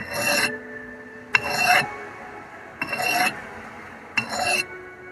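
A sharpening stone drawn by hand along a steel hatchet blade: four separate rasping strokes, each about half a second long and starting with a sharp click, roughly one every second and a half.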